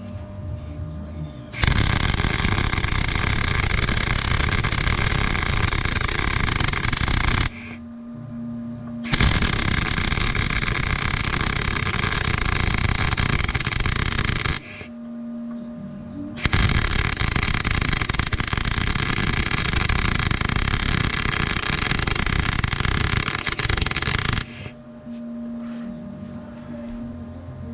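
Three electric welding runs of about six to eight seconds each, starting and stopping abruptly, likely the beads fixing a new C-channel to the mini excavator chassis at the dozer blade cylinder mount. A steady low hum fills the pauses between runs.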